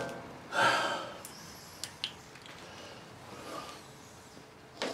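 A man breathing out sharply through his nose, followed by a few faint clicks from handling a flashlight on a workbench.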